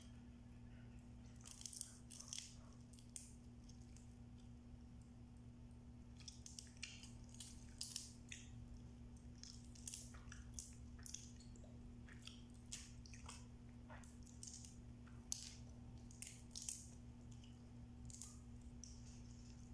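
Cooked blue swimming crabs being cracked and picked apart by hand and eaten: scattered small crunches, cracks and clicks of shell, with chewing. A steady low electrical hum runs underneath.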